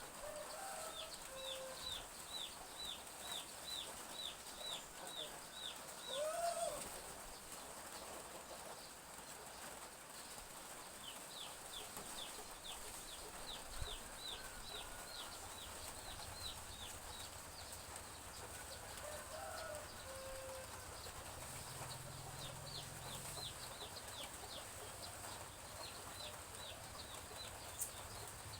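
Chicks peeping in quick runs of short, falling cheeps, several a second, with a hen clucking now and then. Under them is a steady faint hiss of light drizzle.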